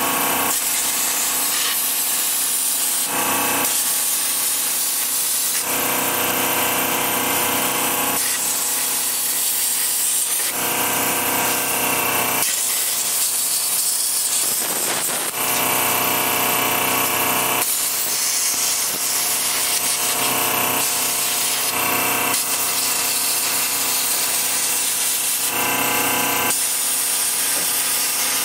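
Plasma cutter cutting through the steel floor pan of a Holden Commodore body shell: a loud, continuous hiss and buzz from the arc and air jet. Its tone shifts in steps every second or two.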